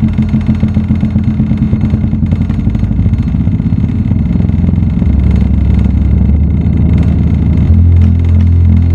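A portable Bluetooth speaker playing a heavy bass test track: rapid deep bass pulses that speed up until they merge into a continuous low hum, which steps up louder near the end.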